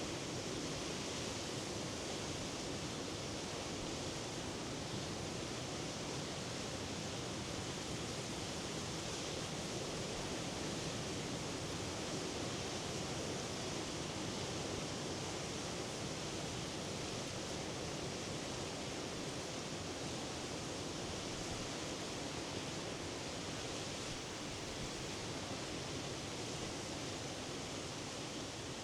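Waves of the Norwegian Sea breaking on the shore, blending into a steady, even wash of surf with no single wave standing out.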